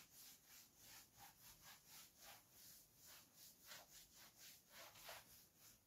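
Near silence with faint scratching of a pen writing, in short, even strokes about four a second.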